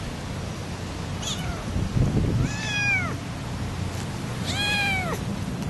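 Very young orange kitten meowing: a faint short squeak, then two clear, high, thin meows that rise and fall in pitch, each lasting about half a second. A low bump of noise comes just before the first full meow, over a steady low background hiss.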